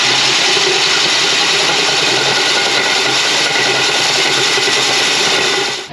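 Power drill running a 152 mm core bit into an old brick wall, a steady motor whine over continuous grinding of brick, cutting off at the end.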